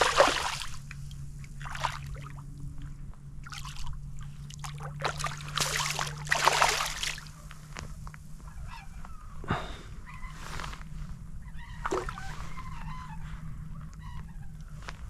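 Water splashing and sloshing in several short bursts, the longest a couple of seconds long around the middle, as a hooked trout thrashes at the surface while being landed.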